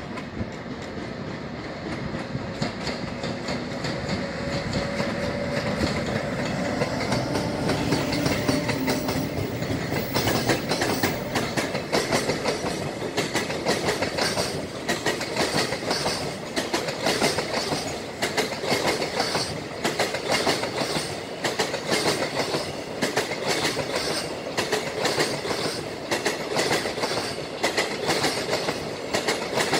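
A freight train passing: an electric locomotive approaches with a steady whine over a rising rumble, then, from about ten seconds in, container wagons run past with a rhythmic clickety-clack of wheels over rail joints.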